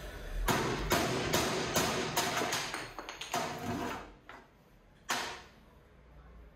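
Hammer striking a chisel cutting into a wooden block, a quick run of blows about three a second. They stop after about four seconds, and a single knock follows about five seconds in.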